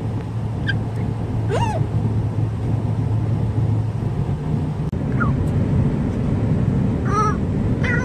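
Amazon parrot giving a few short calls over the steady road noise inside a moving car: a rising-then-falling whistle-like call about a second and a half in, a short falling note midway, and a harsh squawk near the end.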